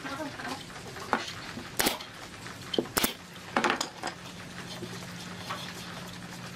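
Wooden chair frame handled on a workbench: a few sharp wooden knocks and light clatter, the loudest about two and three seconds in. A faint low steady hum comes in about halfway through.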